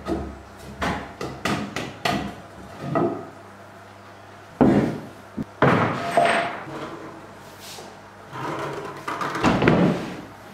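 Wood knocking on wood on a pine workbench: a run of light knocks, then a few louder thuds about halfway through as a wooden board is handled against the bench.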